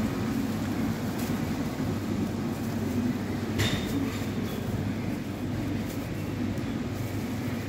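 A steady low machine rumble, with one sharp click about three and a half seconds in.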